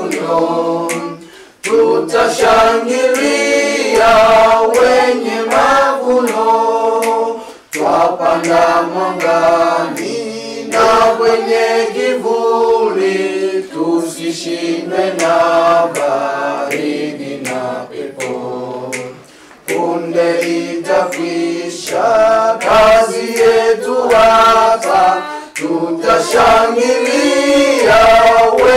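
A group of voices singing a hymn a cappella in harmony, with no instruments. The singing breaks off briefly between phrases three times.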